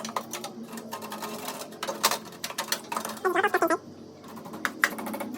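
Irregular clicks and taps of hands handling desktop PC parts inside the open case, with a brief voice-like sound about three seconds in.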